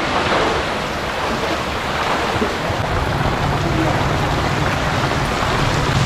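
Heavy rain falling steadily, a dense even hiss, with a low rumble joining about three seconds in.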